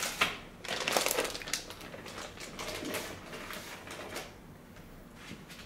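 Clear plastic wrapping crinkling and rustling in irregular bursts as it is handled, fading off in the last second or so.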